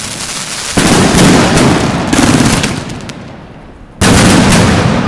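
Fireworks going off in rapid, dense volleys of bangs and crackles. The sound fades somewhat, then comes back suddenly loud about four seconds in.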